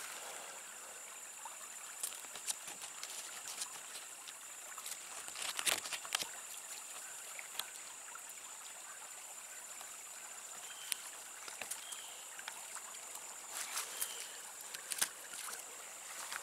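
Creek water flowing and trickling steadily. Scattered small clicks and rustles of leaves and twigs come as spicebush berries are picked by hand, the loudest about six seconds in.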